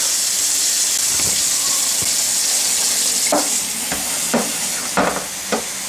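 Kitchen faucet running a steady stream of water into a metal roasting pan of raw chicken breasts, a continuous splashing hiss, filling the pan to cover the chicken for poaching. A few soft knocks sound in the second half.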